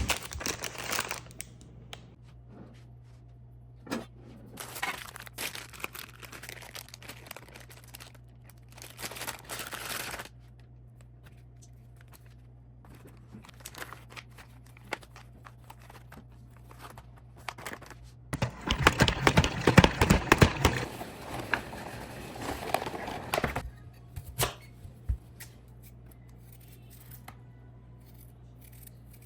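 Crinkling and tearing sounds in bursts, the loudest lasting a few seconds near the middle, over a steady low hum.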